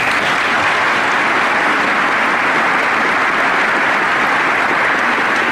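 A large audience applauding: dense, steady clapping from many hands that holds at one level and does not let up.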